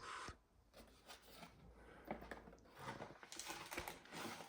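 Faint handling noise of an unboxing: scattered light clicks and soft rustles as packaging and plastic parts are moved about.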